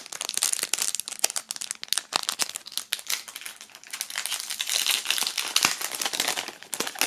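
Clear plastic film wrapping crinkling and crackling as it is pulled off a round patch by hand: a continuous run of sharp, dense crackles.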